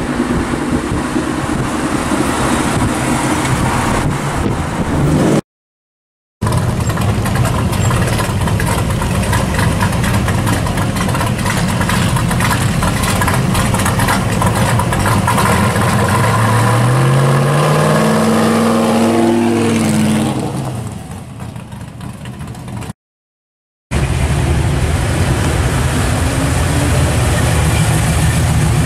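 Car engines and exhausts in a string of short drive-by clips. A late-model Ford Mustang pulls away, then classic cars cruise past, with one engine revving up in a rising pitch about two-thirds of the way through before the sound drops off. Near the end a first-generation Chevrolet Camaro rolls by.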